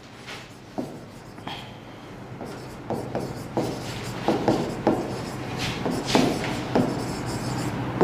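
Pen or stylus scratching and tapping on an interactive smart-board screen during handwriting. It is a string of short strokes and squeaky scrapes that grows louder and busier after a couple of seconds, over a low steady hum.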